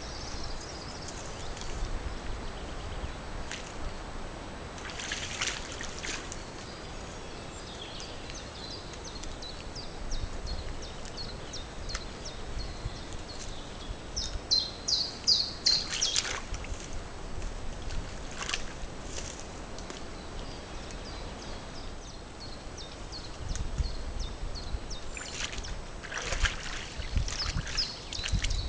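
Small birds chirping and singing, with a fast run of loud high chirps about halfway through, and a few splashes from a moose wading through shallow marsh water.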